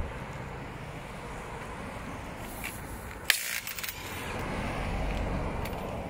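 Steady road traffic rumbling past, with one vehicle swelling louder over the last couple of seconds. About halfway through comes one sharp clank with a brief rattle, from the roadside wheel change on the rally car.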